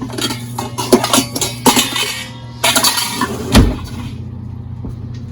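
Dishes and a bowl clinking and knocking as they are taken out and set down, with one heavy thump about three and a half seconds in, over a steady low hum.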